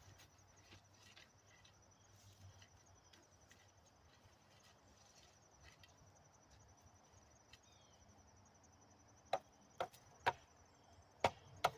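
Faint steady trill of insects with an even pulsing. Five sharp clicks or knocks come in the last two and a half seconds.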